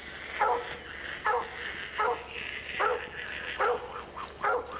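Coon hounds barking at a tree in a steady run of about six barks, close to one a second: dogs holding a raccoon treed.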